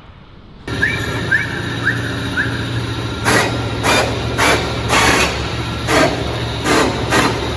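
Workshop noise: a steady low machine hum, four short high chirps in the first couple of seconds, then regular rasping strokes about one and a half a second.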